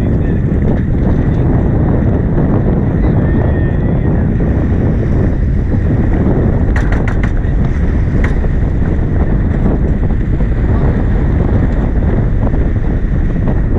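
Wind buffeting the microphone and water rushing along the hull of a sailboat heeled under sail, steady and loud. A quick run of sharp clicks comes about halfway through, then one more a second later.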